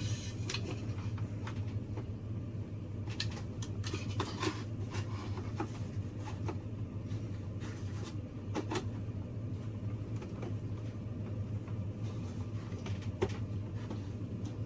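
A steady low mechanical hum with scattered light clicks and knocks over it.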